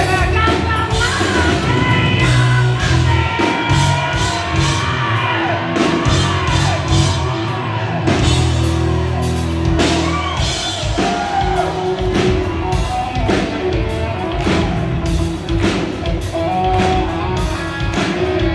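Live hard rock band playing loud: drums and electric guitar, with the singer's voice wailing and bending in pitch over it, mostly in the first half.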